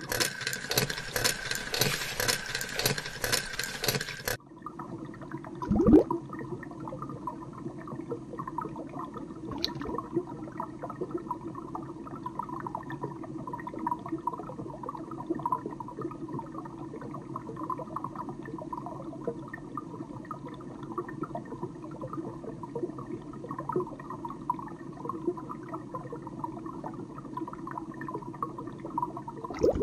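Water rushing with a loud hiss for about four seconds, then cutting off suddenly. A steady, muffled underwater bubbling and gurgling follows, with one loud low gurgle about six seconds in.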